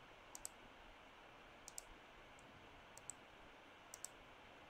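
Faint computer mouse clicks, coming in quick pairs about four times, over a low steady hiss.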